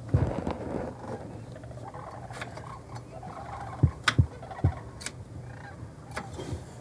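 Waterfowl calling over a steady background, with several sharp clicks and knocks from a window screen being worked by hand that will not open.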